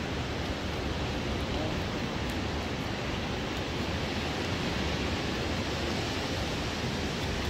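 Steady wash of surf with wind rumbling on the microphone.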